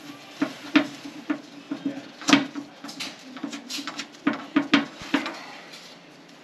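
Irregular clicks and light metal knocks of hands working at the base of a refrigeration compressor, fitting its mounting feet and bolts; the loudest knock comes about two seconds in, and it goes quieter near the end.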